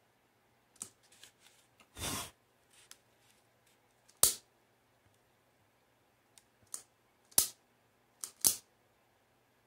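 Scattered sharp clicks and crackles from a glossy photo print being held and bent by hand over a candle flame, with a longer rustle about two seconds in.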